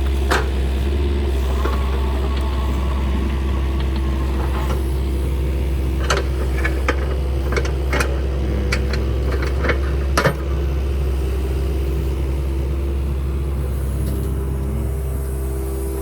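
Kubota KX-030 mini excavator's diesel engine running steadily under work, with a few sharp knocks and clanks from the machine, the loudest about ten seconds in.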